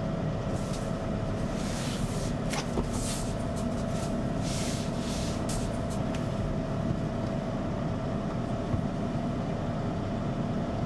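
Hair dryer running steadily, blowing on a small cat's fur, with a constant hum under the airflow. Several brief rustling hisses come in the first half.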